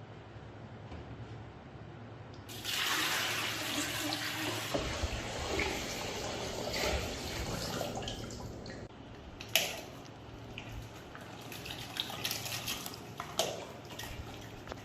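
Water running, as from a tap, that starts suddenly about two and a half seconds in and eases off after about six seconds, followed by scattered clicks and knocks.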